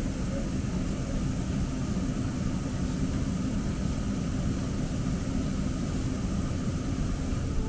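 Steady low rumble and hum inside a light-rail car moving slowly, with a faint high steady whine.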